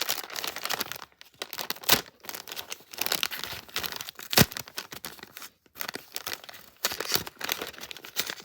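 Packaging being torn open and crinkled by hand, with continuous rustling and two sharp, louder rips about two and four and a half seconds in.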